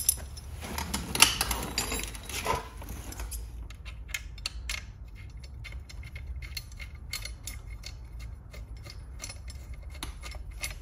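Light metal clinks and clicks as a steel blocking tool is handled and fitted onto a scooter's variator fan wheel. A few louder clinks come in the first three seconds, then a run of small ticks.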